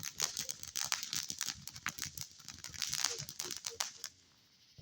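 Consumer fireworks crackling: a dense run of rapid small pops with a hiss, dying away about four seconds in.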